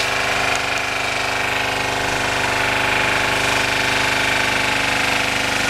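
Fire truck's water pump and engine running steadily, with the hiss of a hose jet spraying water under pressure.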